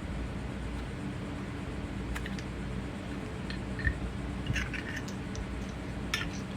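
A few faint, scattered clicks and taps from small metal parts being handled: the converted Ronson lighter tool kit and its screwdriver bits. Under them runs a steady low room hum.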